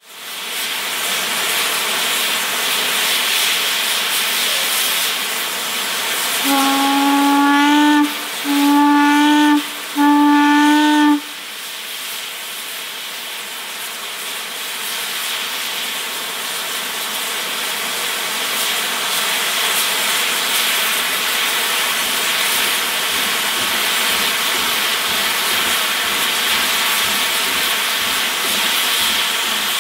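Heisler geared steam locomotive hissing steadily with escaping steam. About six seconds in, its steam whistle sounds three blasts on one steady note, the first longest. Later the hiss swells as high-pressure steam blows from its open cylinder cocks.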